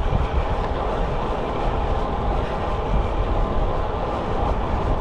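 Steady rush of wind on the microphone and rumble of tyres on the road from a road bike being ridden, with most of the noise at the low end.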